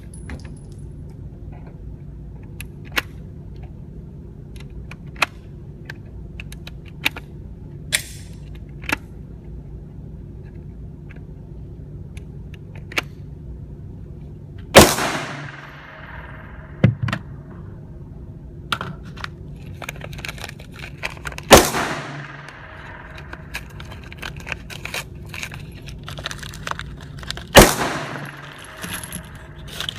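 Three loud gunshots several seconds apart, each followed by a long echoing tail, with fainter sharp clicks and pops in between over a steady low hum.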